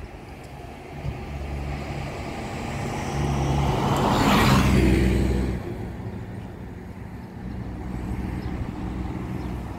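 A bus driving past close by, its engine and tyre noise swelling to a loud peak about four and a half seconds in and then fading, over a steady low traffic rumble.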